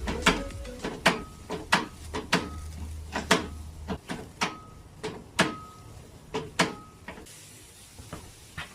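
Sharp metallic clicks and taps, about two a second, some with a brief ringing tone, as metal parts are worked on a car door; they thin out and stop near the end.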